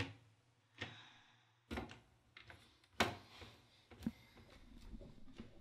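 Computer keyboard: five single keystroke clicks at uneven spacing, roughly one a second, after a run of fast typing.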